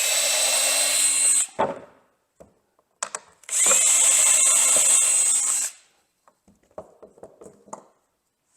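Power drill running in two steady bursts, about one and a half and two seconds long, drilling pilot holes into the wood tabletop for the T-track screws. A few light taps and clicks follow near the end.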